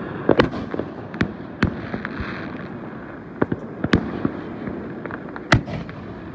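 Fireworks going off: a string of sharp bangs at irregular intervals over a continuous crackle, with a brief hiss about two seconds in.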